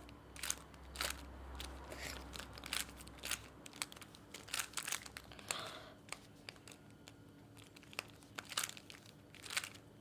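Plastic Rubik's cube layers being turned by hand: irregular short clicks and rattles, a few per second, as the faces are twisted.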